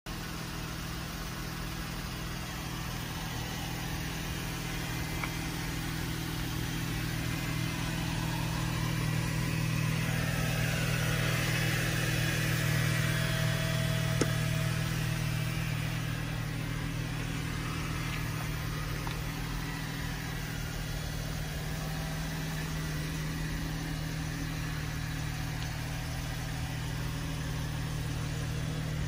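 2012 Chevrolet Camaro's engine idling steadily, a low even hum that swells somewhat in the middle and then eases back. A single light tap about 14 seconds in.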